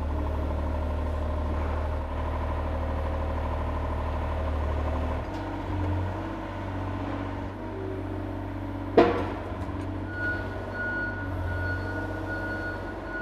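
John Deere 35G mini excavator's diesel engine running while its hydraulic functions are worked. The engine note changes about five seconds in, a sharp clunk comes about nine seconds in, and a steady high whine sounds near the end.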